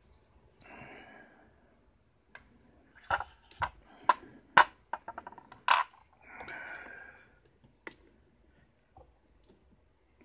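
Workbench clatter: metal lock tools and a brass lock cylinder being set down on a wooden pinning tray, a quick run of sharp clicks and knocks in the middle. A short scrape comes before and after, as things slide over the bench.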